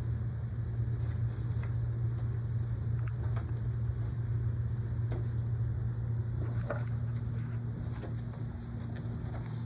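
Steady low mechanical hum with a few faint scattered clicks.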